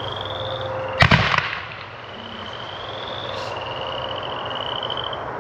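A 30 mm Italian single-shot comet firework, a White Strobe Comet with White Strobe Line, fires once about a second in: one sharp bang that dies away over about half a second. A steady high trill carries on in the background.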